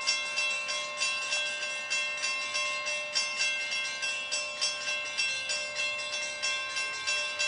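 A railroad bell ringing in quick, even strikes, about two to three a second, as a Metrolink passenger train approaches.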